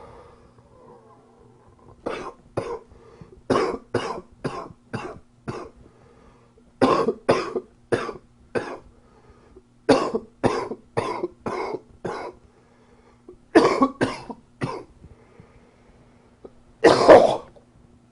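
A man coughing in short fits of two to six quick coughs, a few seconds apart, ending with one longer, louder cough.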